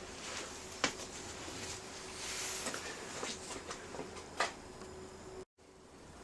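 Faint, scattered clicks and knocks over a low steady hum, with no engine running.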